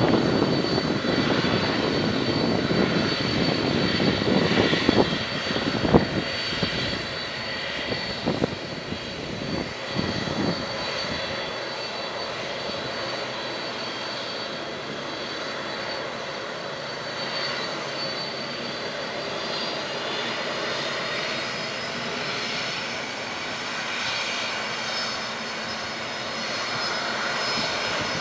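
Boeing 767 freighter's jet engines running on the ground: a steady high whine over a rumble. The rumble is louder in the first ten seconds or so, with a few knocks around six to ten seconds in, and the whine edges up in pitch near the end.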